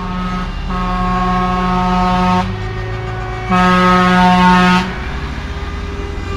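Semi-trucks in a convoy driving past with engines running, sounding their air horns in long blasts: one from about a second in lasting nearly two seconds, then a louder one near the middle lasting over a second, with a lower-pitched horn tone between them.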